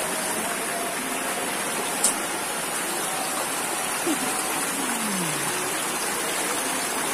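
Muddy floodwater rushing steadily past, a river swollen by heavy rain, with one sharp click about two seconds in.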